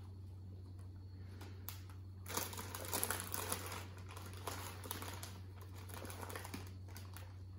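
Plastic spinach bag crinkling and rustling in irregular bursts as a hand reaches in and pulls leaves out, loudest between about two and three and a half seconds in, over a steady low hum.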